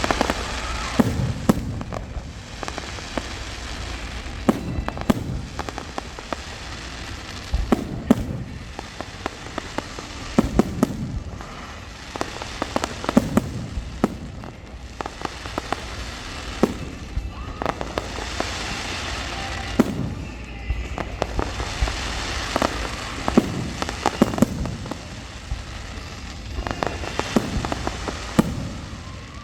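Fireworks show going off continuously: many sharp bangs, sometimes several a second, over steady crackling.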